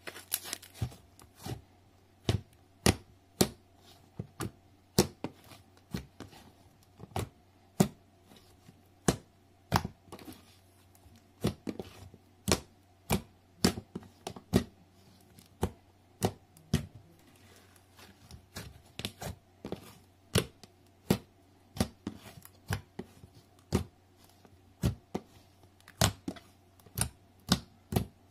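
Sandy slime clicking and popping as a palm presses it flat against the table and lifts off, sharp clicks about two a second, unevenly spaced.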